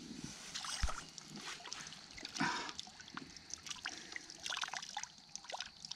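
Water splashing and trickling around a hooked salmon held in the water for release, in quick irregular splashes with a stronger one about two and a half seconds in.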